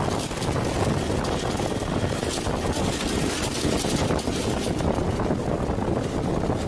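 Military transport aircraft's engines and wind rushing past, heard at the open jump door: a steady, loud, even noise.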